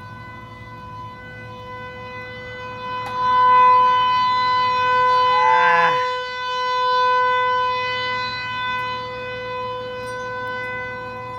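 Outdoor tornado warning siren sounding a steady tone at full pitch during a test, its loudness swelling and fading. A brief falling sound cuts across it about halfway through.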